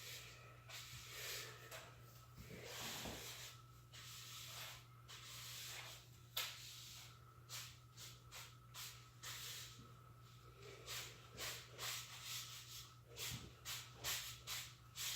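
Sweeping up leaves and drilling debris: faint, short brushing strokes that come quicker and more regularly in the second half, over a steady low hum.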